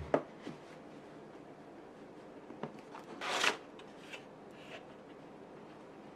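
Cardboard mailer box set down on a wooden desk with a sharp knock. About three seconds in, its flap lid is lifted open with a brief scraping rub of cardboard and paper, and a few light taps of handling follow.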